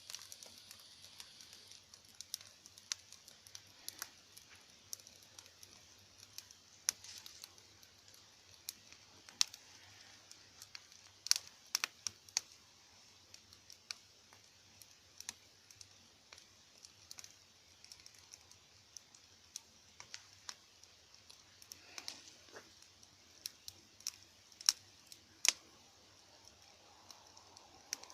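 Wood fire crackling in a garden stove: irregular sharp pops and snaps, a few louder than the rest, over a faint hiss.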